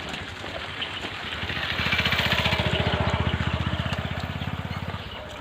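A small engine with a fast, even beat, growing louder from about a second in and fading away near the end, as a vehicle passes by.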